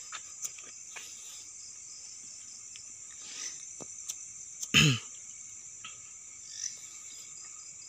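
Crickets chirring steadily in a high, even band. About five seconds in, a short loud human vocal sound, falling in pitch, such as a grunt or cough.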